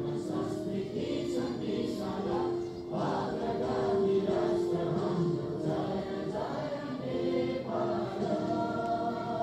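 A large group of schoolchildren singing together in unison, a slow song of long held notes.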